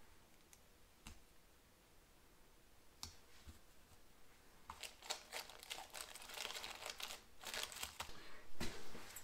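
Faint handling noises on a workbench: a couple of single small clicks, then a few seconds of dense crinkly rustling and clicking as small engine valve parts and packaging are handled.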